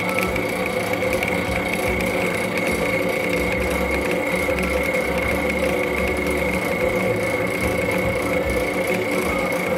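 LeBlond engine lathe running steadily under power while cutting threads on a steel bar, a constant high whine over a mechanical hum with faint ticking.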